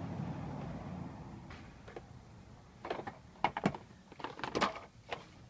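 A plastic toy fire truck knocking and clattering against a child's plastic slide in a series of irregular sharp knocks and scrapes, most of them in the second half. A low steady hum fades away over the first second or so.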